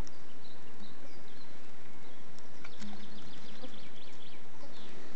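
Swarm of midges and flies buzzing around the microphone, a low hum that comes and goes, while small birds chirp with a quick trill in the middle. A few sharp clicks.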